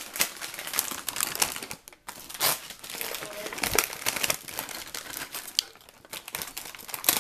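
Plastic Oreo cookie package crinkling as a hand grips and handles it: a quick, irregular run of crackles with a brief pause about two seconds in.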